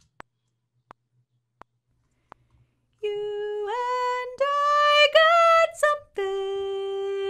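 Four faint, evenly spaced clicks, then a recorded solo soprano voice enters about three seconds in. It sings held notes joined by upward slides, breaks off briefly, then holds one long note.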